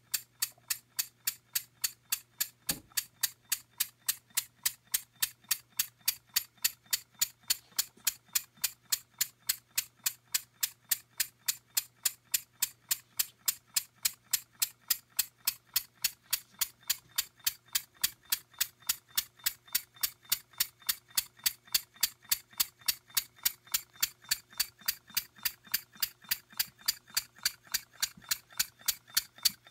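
Small single-cylinder model engine running steadily on compressed air, giving a sharp exhaust puff about two and a half times a second.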